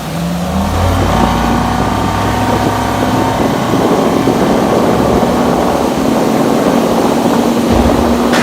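Motorboat engine running under way. It speeds up in the first second, then holds steady with rushing water and wind noise.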